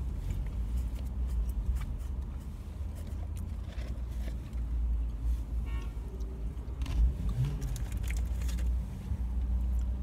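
Steady low rumble in a parked car's cabin, with scattered small clicks and rustles from fried chicken and its wrapping being handled and eaten by hand.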